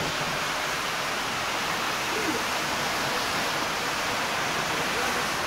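Heavy rain pouring down, a steady, even hiss of water with no break.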